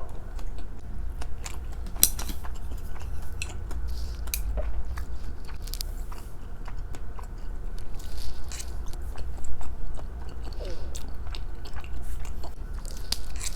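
Close-miked chewing and biting of food, with many short wet mouth clicks scattered through.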